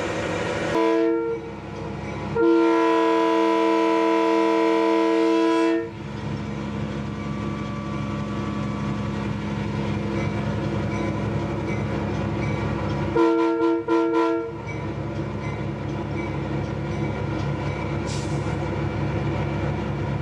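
Diesel locomotive's chime horn sounding a short blast, then a long blast of about three seconds, then a couple of quick short blasts, over the steady running of the locomotive and its train on the rails.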